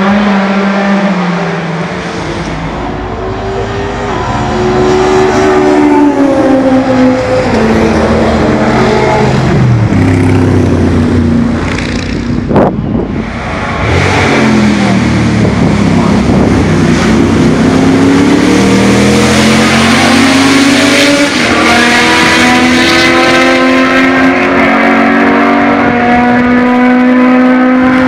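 Historic racing car engines at high revs on the circuit, the pitch climbing in steps through gear changes. A car passes close about halfway through, its pitch dropping as it goes by.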